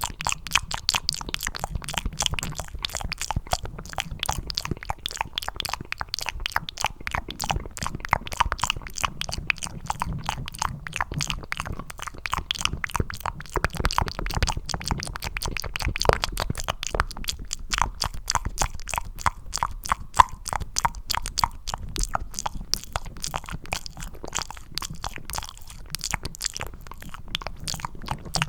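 Cupped ASMR mouth sounds close to the microphone: a dense, continuous run of quick clicks and smacks, many a second, made to sound like eating mac and cheese.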